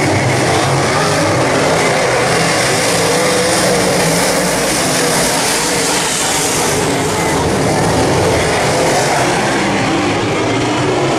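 Several dirt late model race cars' V8 engines running together around a dirt oval, loud and steady, their overlapping pitches wavering up and down.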